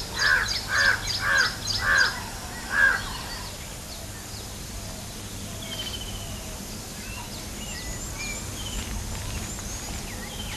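A crow cawing five times in quick succession over the first three seconds, then smaller birds chirping faintly over a steady outdoor background.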